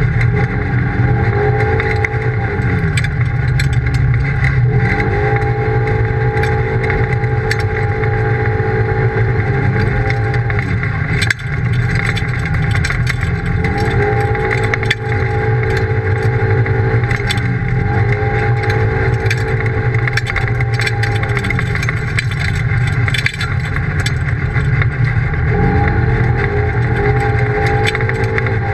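Polaris RZR side-by-side's engine running under way, heard from inside the cab. The revs repeatedly climb, hold steady, then drop off as the throttle eases, with frequent small clicks and rattles.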